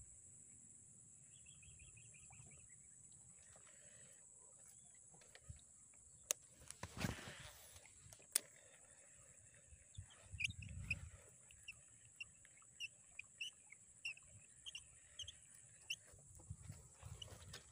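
A cast with a baitcasting rod and reel: a sharp click, about a second of line rushing off the spinning spool, and a second click as the reel is engaged. Afterward, while the lure is worked back, short chirps and ticks come about twice a second over a steady high-pitched drone.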